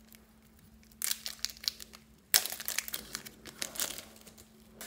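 Thin plastic packet of soft clay crinkling as it is handled and squeezed open. It comes in two bursts: a short one about a second in and a longer one from the middle onward.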